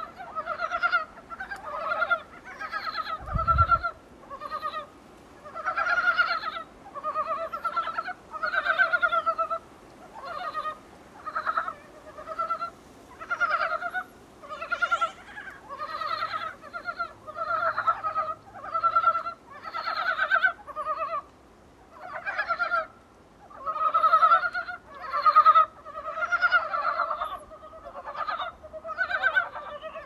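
A chorus of Dybowski's brown frogs (Rana dybowskii) calling: short pulsed, clucking croaks from several frogs, overlapping and repeating more than once a second.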